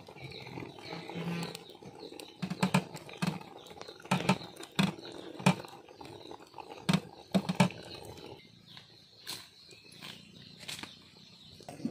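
Wet squelching and peeling as the lining is stripped by hand from blanched goat tripe over a steel plate, with irregular sharp clicks and soft taps. The tripe was scalded in hot water so the skin comes away easily.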